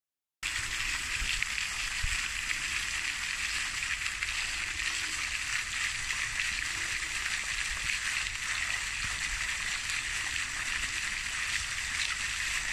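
Steady outdoor ambient hiss with a faint low rumble underneath, starting abruptly.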